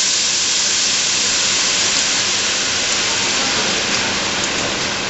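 Brandy poured into a hot stainless-steel stockpot to deglaze it, hissing and sizzling steadily as it boils off the pan's browned residue. The hiss eases slightly near the end.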